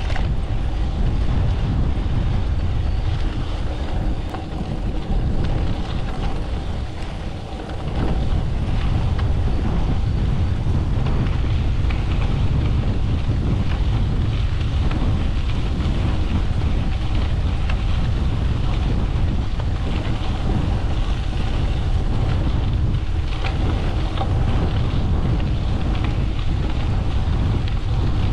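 Strong wind blowing across the microphone of a cyclist's camera on a gravel bike, a loud, steady low buffeting. It eases off briefly between about four and eight seconds in.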